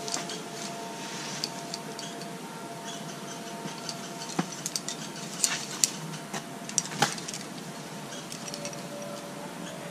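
Small metal pieces clinking lightly: scattered sharp clicks, with a cluster of them about halfway through.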